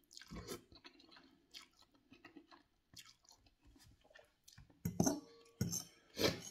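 A forkful of ramen noodles slurped, then chewing with small wet clicks. Near the end come a few louder scrapes and clinks of a metal fork in a glass bowl.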